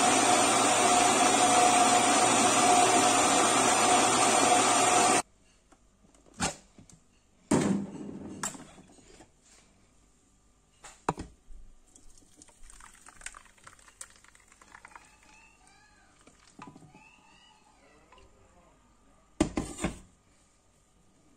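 Countertop blender running steadily at full speed, puréeing apple and carrot, then switched off abruptly about five seconds in. After that come scattered knocks and clatters from handling the jar and strainer, with a short loud burst of noise near the end.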